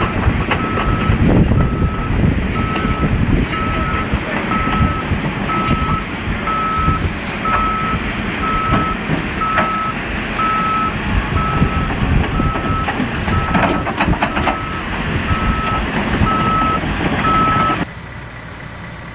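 A heavy-equipment backup alarm beeps steadily at one pitch, about two beeps a second, over the running of heavy diesel machinery. Both cut off abruptly near the end.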